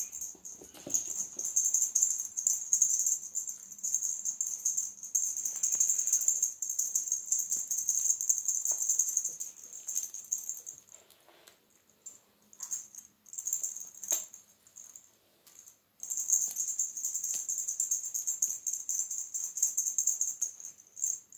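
A cat wand toy jingling as it is shaken. The jingling is continuous for the first half, breaks off into a few short shakes around the middle, then runs on steadily again.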